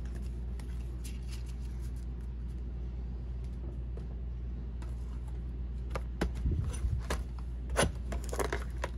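A steady low hum under soft, scattered clicks and rustles of trading cards and foil packs being handled. The handling sounds become more frequent in the last few seconds.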